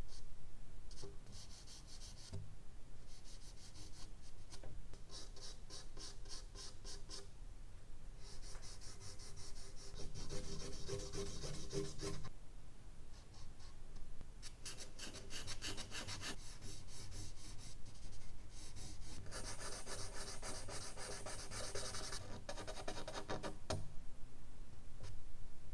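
Charcoal scratching across medium-surface drawing paper in rapid hatching strokes. The strokes come in stretches of one to four seconds with short pauses between.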